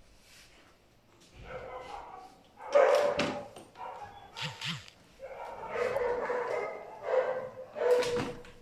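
Small dog whining and yipping in a run of pitched cries, some short and some drawn out over a second, the loudest about three seconds in.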